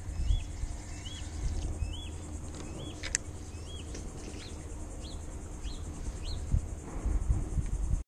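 A bird calling over and over, a short high chirp about once a second, first rising and falling, then falling from about halfway through. A steady low rumble lies underneath, and there is one sharp click about three seconds in.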